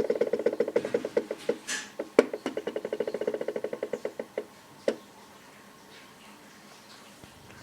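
Stepper motor driving an HO-scale model turntable, stepping in rapid ticks about ten a second with a sharper click about two seconds in. It stops with a final click about five seconds in.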